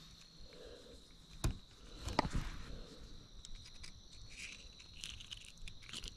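Faint steady trilling of insects, with two sharp clicks about one and a half and two seconds in and light rustling from unhooking a fish.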